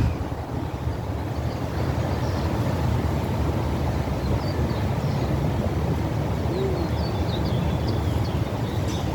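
Steady low rumble of wind on the microphone, with faint, short bird chirps here and there that come more often in the second half.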